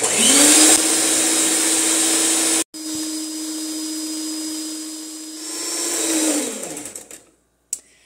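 Mondial Prática electric stand mixer starting up with a rising whine, then running steadily as its beaters whip eggs, oil and sugar into batter. The sound drops out for an instant about a third of the way in, and the motor winds down near the end.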